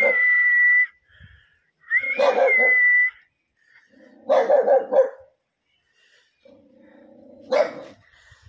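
A dog barking in long, drawn-out calls, three of them about two seconds apart, the first two carrying a high, steady whistle-like tone; a shorter sound follows near the end.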